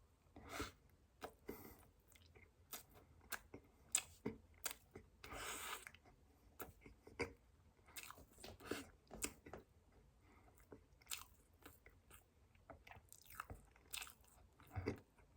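Close-miked chewing and biting of a soft chocolate-coated ring cake: irregular wet mouth clicks and smacks, with one longer crackly noise about five seconds in.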